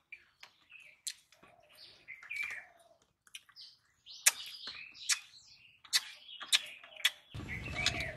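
Birds chirping, with sharp clicks and scrapes of fingers mixing rice on steel plates. A short rush of noise comes near the end.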